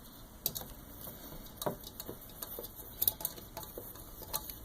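A spoon stirring in a small cup, making irregular light clicks and taps against the cup.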